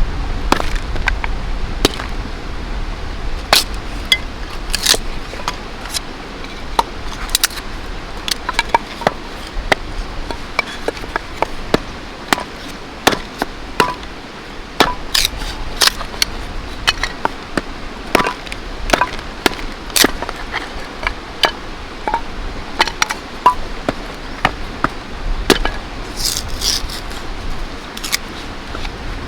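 Irregular sharp knocks and clinks, like hand-tool work at a campsite, coming one to three a second at uneven intervals over a steady background rush.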